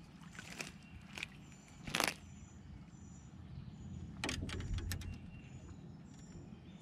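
A few sharp knocks and clatters of handling in a boat as a small bass is landed and unhooked, the loudest about two seconds in and a cluster with a low rumble around four to five seconds in. Faint high chirps repeat in the background.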